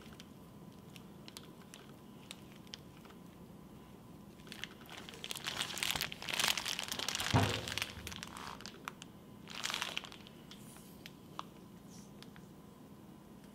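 Plastic zip-top bag crinkling as a magnet wrapped in it is worked and pulled out of a jar of magnetic slime, loudest in a stretch from about a third to just past halfway through and again briefly about three-quarters in, with faint scattered ticks between.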